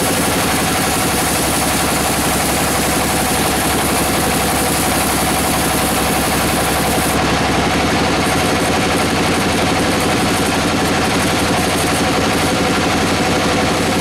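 Band sawmill running steadily as its blade cuts through a teak log: a continuous engine drone under a high hiss.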